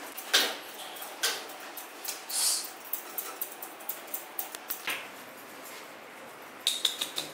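Steel grooming scissors snipping a Pomeranian's face fur: a scattered run of short, sharp clicks, with a quicker cluster of snips near the end.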